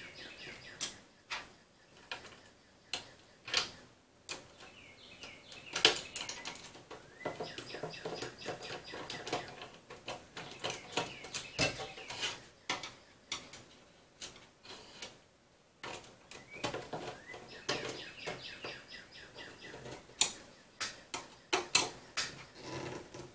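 Hand-tightening M5 screws into T-slot nuts on a 3D printer's aluminium frame: irregular clicks and small metal knocks of the tool and parts, with short high chirping sounds among them.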